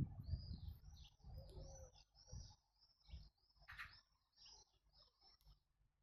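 Small songbird singing a quick series of short, high chirping notes, faint. A low rumble sits under the first couple of seconds.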